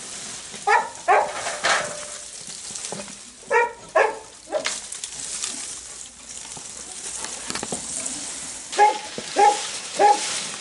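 A dog barking in short sharp barks: twice about a second in, twice around four seconds, and three times near the end, over a steady background hiss.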